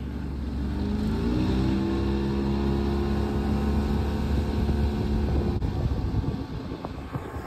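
Bass boat's outboard motor speeding up, its pitch rising over the first couple of seconds, then running steadily at speed under a steady rushing noise.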